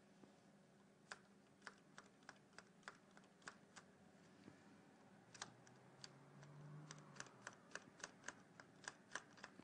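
Near silence with faint, irregular clicking, about three clicks a second, starting about a second in and pausing briefly midway.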